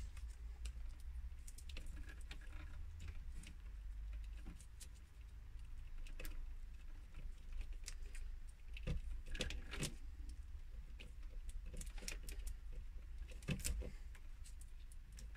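Hands handling a pair of electrical cables and peeling the plastic tape off them: scattered small clicks, crackles and rustles, over a faint steady low hum.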